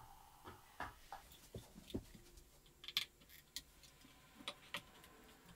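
Irregular light clicks and knocks of a wheel being pushed and snapped onto a rollator's frame.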